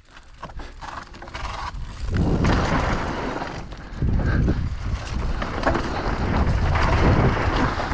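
Downhill mountain bike rolling down a rocky dirt trail: tyres crunching over dirt and rock and the bike rattling. The noise gets louder and rougher about two seconds in.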